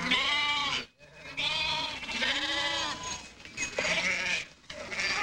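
A flock of sheep bleating, several long, wavering bleats one after another.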